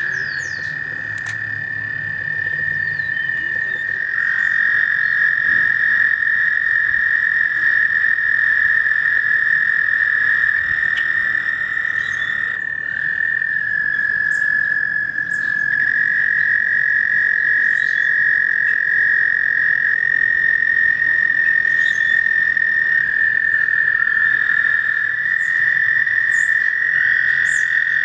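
A chorus of frogs trilling. Several long, high-pitched trills overlap into an unbroken drone, with single callers joining in and dropping out every few seconds.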